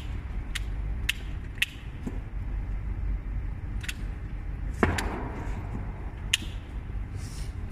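Sharp metallic snips of pliers cutting the galvanized wire ends of hexagonal wire mesh on its rolling pipe. The snips come about two a second at first, then only now and then, with one louder clink and short rattle about five seconds in, over a steady low machine hum.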